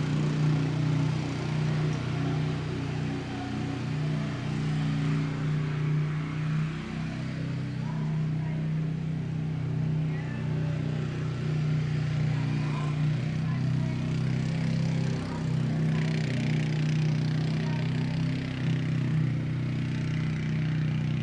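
A steady low mechanical hum, even and unbroken throughout, with a faint higher hiss above it.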